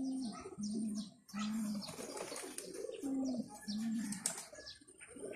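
Domestic racing pigeons cooing: short, low notes that dip at the end, in two runs of about three coos each, the second run starting about three seconds in.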